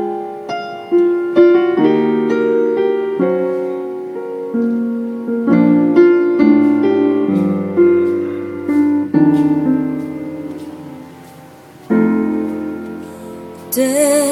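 Solo piano playing a slow ballad intro: sustained chords and melody notes that ring and fade, growing softer around ten to eleven seconds in before fresh chords are struck.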